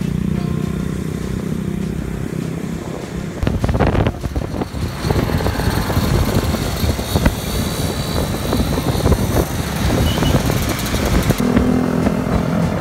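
Motorcycles riding along a wet road, their engines running under a loud rushing noise of wind and road on the moving bike's microphone. About three and a half seconds in the sound turns louder and rougher, and near the end it settles back to a steadier hum.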